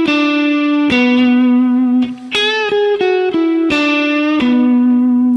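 Electric guitar playing single notes of a B minor pentatonic lick slowly, one at a time, with a half-step string bend up and back about two and a half seconds in.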